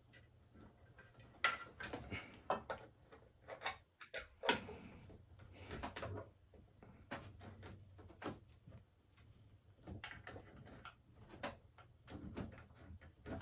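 Scattered, irregular small clicks and knocks of metal parts being handled: a scooter's rear suspension pin being worked out and pushed back through the suspension arm from the other side.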